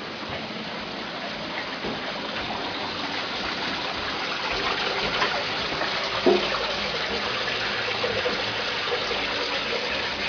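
Running water splashing and trickling in a small garden fish pond, a steady rush that grows slowly louder, with one short knock about six seconds in.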